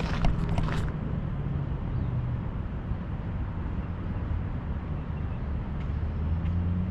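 Steady low rumble of motor traffic, with the engine hum of passing vehicles growing louder near the end. A few short clicks in the first second.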